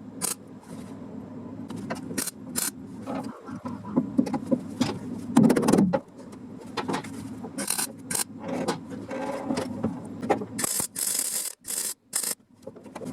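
Workshop handling noises: irregular clicks, knocks and scrapes, with a longer, louder scrape about five seconds in and bursts of hissing noise near the end.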